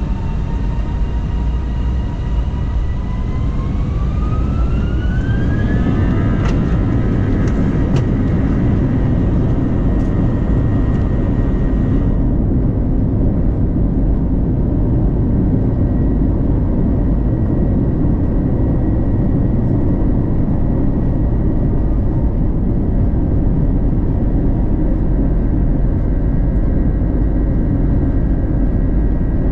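Airbus A321-211's CFM56 turbofan engines spooling up to takeoff thrust, heard inside the cabin. A whine rises in pitch for about three seconds, then holds steady over a heavy low rumble as the jet accelerates down the runway. A few sharp clicks come several seconds in.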